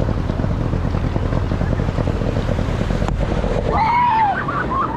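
Small fishing boat's engine running under way through surf, with wind buffeting the microphone. A sharp knock about three seconds in, and a short rising-and-falling cry from a person near the end.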